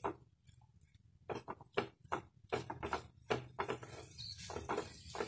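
Wooden spatula stirring and scraping a beef-and-onion filling in a non-stick kadai: a run of quick scraping strokes, about two or three a second, starting about a second in.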